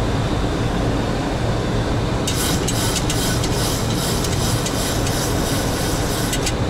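Steady flight-deck noise of a Boeing 737NG descending on approach: an even rush of airflow over a low hum. From about two seconds in until near the end, a run of faint crackling rides on top of the hiss.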